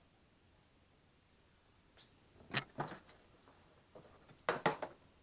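Short rustles and knocks of packaging being handled while a boxed radiator is unpacked, in two brief clusters about two and a half and four and a half seconds in.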